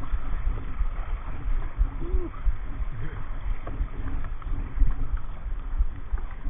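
Kayak on a river: steady water noise with irregular low rumbling thumps.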